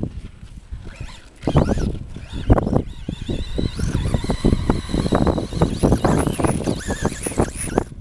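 Wind buffeting the microphone in uneven gusts. Over it, a thin high whine rises and falls from about three seconds in, from the Traxxas Rustler VXL RC truck's brushless electric motor as it speeds up and slows down on the sand.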